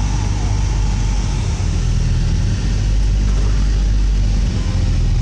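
1995 Honda Del Sol's engine running with a steady low hum, heard from inside the cabin.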